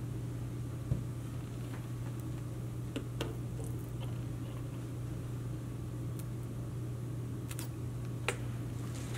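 Steady low hum with a few light clicks and taps from a plate being set down and a plastic ketchup squeeze bottle being handled and squeezed.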